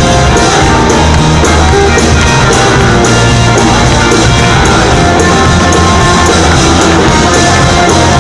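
Live rock band playing loud, with electric guitar and a steady drum beat.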